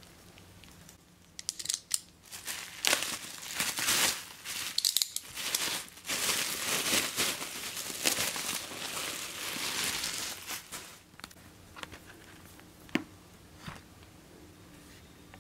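Plastic bubble wrap being torn open and crinkled by hands, in irregular bursts for about ten seconds, then two light knocks near the end.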